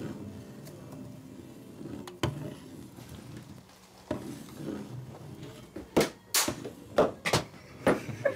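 A man imitating a chicken: a run of loud, short clucks, roughly two a second, starting about six seconds in. Before that a single sharp knock is heard at about two seconds.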